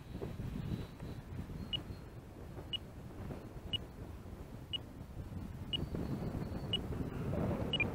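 An electronic beeper sounding short, high beeps about once a second, seven in a row, over steady wind rumble on the microphone.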